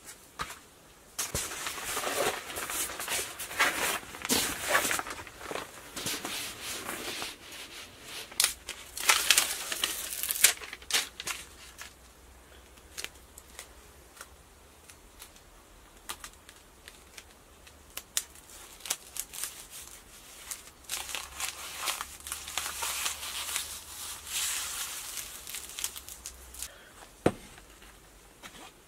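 Paper floor-protection sheeting being handled and laid down, in spells of rustling and crinkling, with scattered knocks and clicks.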